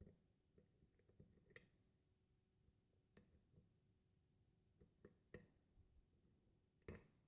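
Faint, irregular small clicks of a lock pick working the pin stack inside a four-pin Abus 45/40 brass padlock during single-pin picking, the sharpest click near the end.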